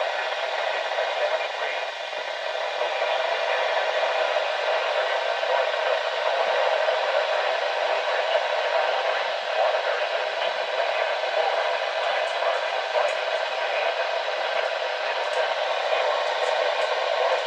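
Steady static hiss from a NOAA Weather Radio receiver, with a few faint crackles near the end.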